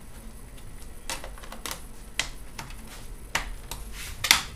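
Sharp plastic clicks and light knocks, about five spread unevenly across a few seconds, as a laptop's hard drive bay cover is pressed down onto the underside of the case to snap it into place.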